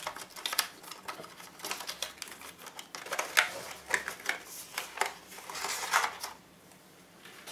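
A small cardboard retail box being opened by hand, its flap lifted and a clear plastic tray slid out: irregular clicks and crackles of card and plastic that stop about six seconds in.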